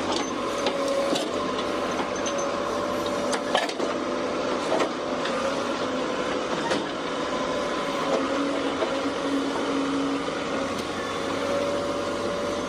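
A heavy earth-moving machine running steadily, with a held whine and scattered sharp knocks and clanks.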